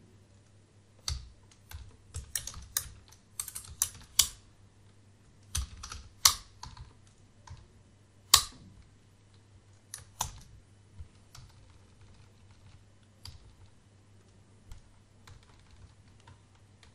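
Computer keyboard keystrokes in irregular bursts, quick runs of typing in the first half, then sparser single presses, with a few louder strikes standing out. A faint steady low hum lies underneath.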